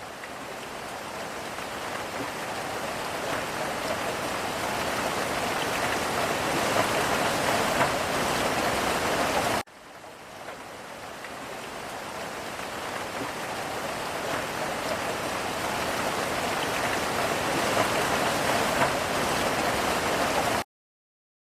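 Steady rain falling, a dense patter that grows gradually louder, breaks off suddenly about halfway, starts again and swells once more, then cuts off to silence near the end.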